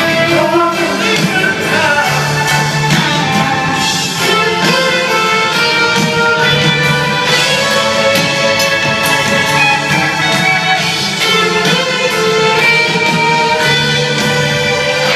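Live band music with singing and guitar, played over a stadium PA and heard from among the crowd.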